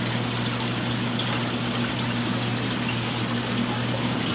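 Steady rush and trickle of running water from aquarium filtration, with a constant low hum from the tank pumps underneath.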